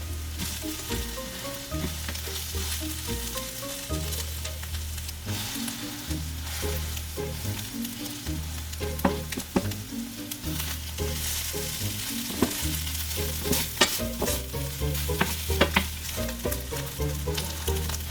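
Food sizzling as it fries in a pan while being stirred, with a utensil scraping and clicking against the pan, the clicks thickest in the second half.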